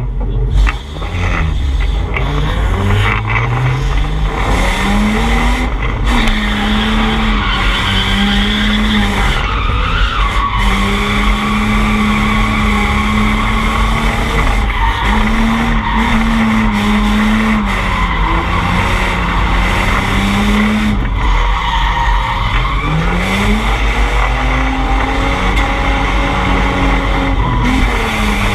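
Drift car engine revving high and held near the top of its revs through a drift, with tyres skidding and squealing. The revs climb quickly about a second in, hold with brief dips, and climb again about three-quarters of the way through.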